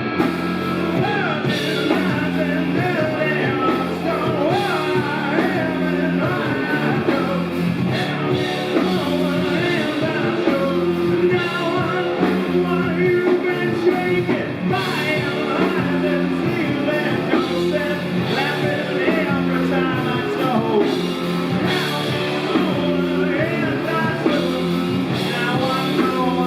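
Rock band playing live: a heavy, repeating riff on electric guitar, bass and drums, with singing over it.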